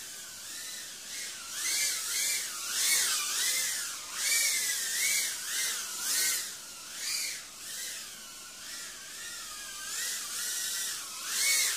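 Small brushless FPV quadcopter's motors whining in flight. The pitch rises and falls about once a second with the throttle, and a hiss of prop wash swells with each rise.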